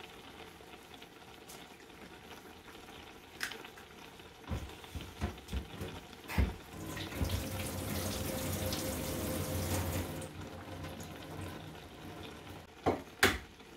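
Kitchen sink tap running for about three seconds, starting about seven seconds in. A few light knocks come before it, and two sharp taps near the end.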